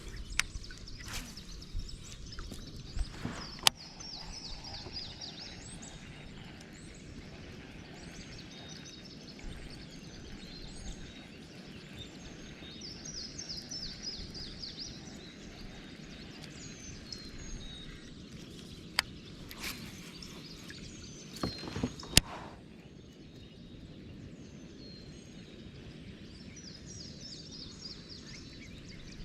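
Outdoor ambience with a steady low rushing noise. A songbird sings a high, fast trilled phrase three times. A few sharp knocks come through, the loudest about two-thirds of the way in.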